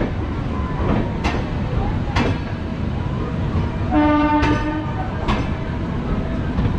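Express passenger train running, heard from the open coach doorway: a steady low rumble with a few sharp clicks as the wheels cross rail joints and points. About four seconds in, the locomotive's horn sounds one short blast.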